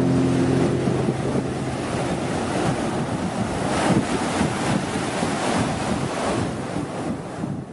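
Ocean surf breaking on a beach, with wind buffeting the microphone; the sound fades out near the end.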